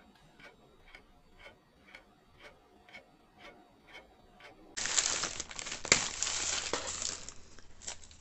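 Thin clear plastic bag crinkling loudly as it is pulled open and off a doll, starting suddenly about five seconds in. Before that there is only a faint, even ticking, about two ticks a second.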